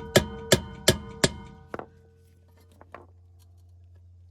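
Hammer blows on a screwdriver set in a brake rotor's stuck retaining screw, struck to shock it loose: five sharp metallic strikes about every 0.4 s, each leaving a ringing metal tone, then a couple of faint knocks.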